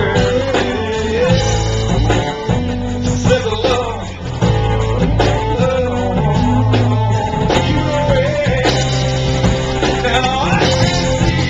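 Loud pop-rock music with a sung vocal, guitar and a steady bass line, played over a sound system during a sound check.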